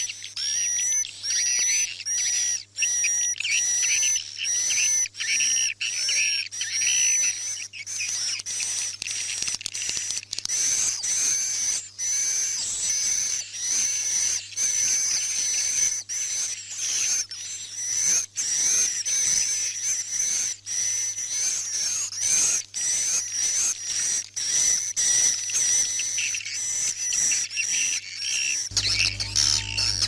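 Recorded chorus of edible-nest swiftlets twittering, a dense unbroken mass of high chirps and whistles. It is a 'night lullaby' track, the playback used inside swiftlet houses at night to keep the birds settled and roosting.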